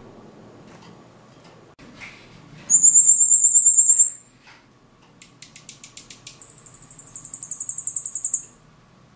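A caged silil singing: two fast, high trills, the second longer, with a short run of quieter ticking notes between them.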